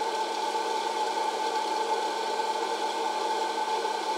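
Presto PopLite hot air popper's fan motor running with a steady whir and hum, blowing hot air over the corn kernels in its chamber. No kernels pop yet: this is the heating stage before popping starts.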